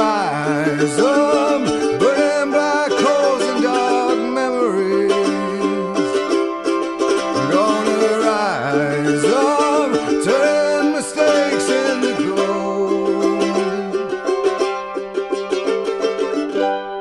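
Background music: an acoustic song with plucked strings and a gliding melody line, getting quieter near the end.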